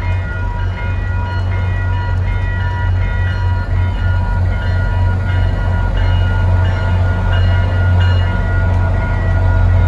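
MBTA commuter train led by a GP40MC diesel locomotive passing a road crossing: a steady low rumble that grows slightly louder toward the end, with several higher steady tones coming and going above it.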